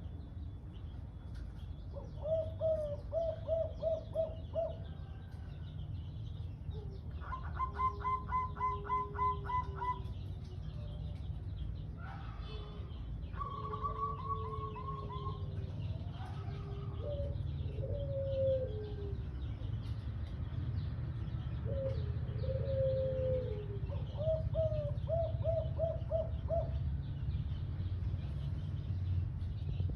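White derkuku (spotted dove) cooing in repeated phrases, some ending in a quick run of short "kuk" notes, over a steady low background hum.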